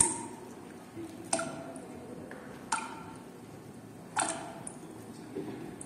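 Four sharp strikes, each with a brief ring, evenly spaced about one and a half seconds apart, over faint room noise.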